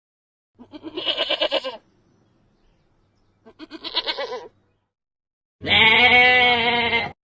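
Livestock bleating three times: two short quavering bleats, then a longer, steadier one near the end.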